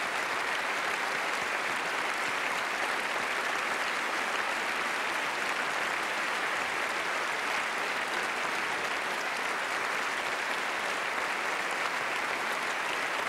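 Audience applauding steadily, an unbroken ovation with no let-up.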